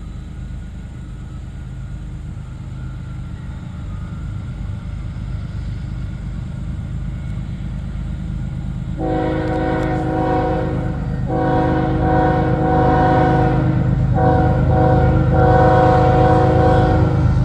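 Diesel freight locomotives of a CN train approaching with a low rumble that grows louder. About nine seconds in, the locomotive's air horn sounds two long blasts, a short one, then a long one: the standard grade-crossing signal.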